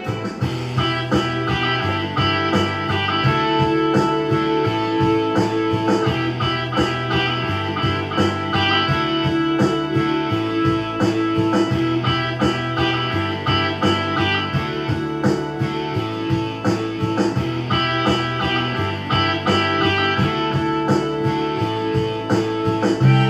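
Rock instrumental played on a digital piano, with an electric-guitar-like lead over a pre-recorded backing track. The backing has a steady drum beat and a stepping bass line.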